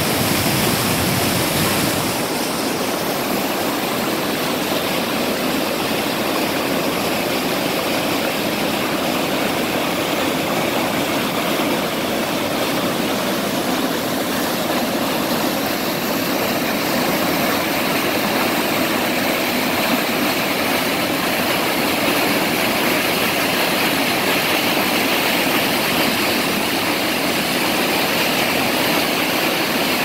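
Mountain stream water rushing over a rock shelf and churning into white foam against a large boulder: a steady rush of water with no break, a little hissier in the second half.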